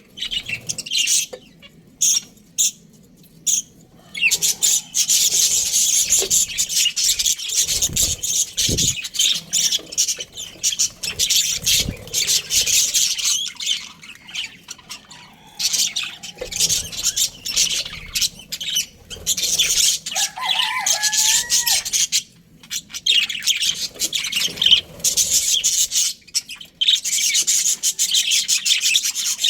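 Budgerigars chirping in rapid, high-pitched chatter. It is sparse at first and becomes almost continuous a few seconds in, with brief pauses.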